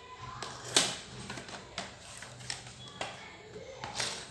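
Plastic clicks and knocks of an Acer laptop being handled and turned over on a concrete floor. The loudest knock comes about a second in, followed by several lighter taps.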